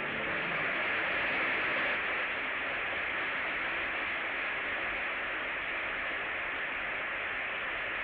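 Upright vacuum cleaner running: a steady hiss with no orchestra playing over it.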